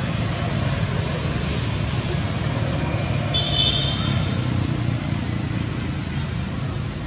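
Steady low rumble of road traffic, with a brief high-pitched squeak about three and a half seconds in.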